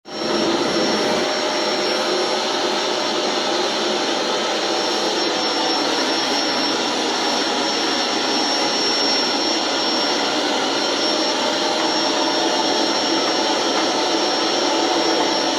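Vacuum cleaner running steadily with a thin high whine, used to groom a dog's coat.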